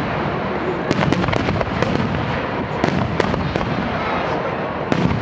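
Finale barrage of aerial firework shells launching and bursting at close range: a continuous dense rumble, broken by sharp cracks at irregular moments.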